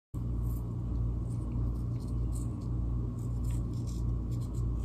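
A steady low hum, with faint scattered light ticks and rustles from fingers pinching salt and sprinkling it onto cookie dough on a silicone baking mat.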